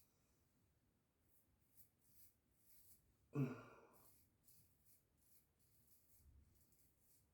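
Faint, short scraping strokes of a double-edge safety razor cutting stubble through shaving lather, with one brief vocal sound from the shaver about halfway through, the loudest thing here.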